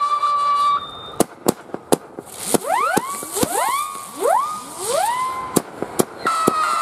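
'Crying Wolf' firework battery firing whistling shots. A steady whistle stops about a second in, and sharp cracks follow. Then several rising whistles overlap one another, and a steady whistle starts again near the end.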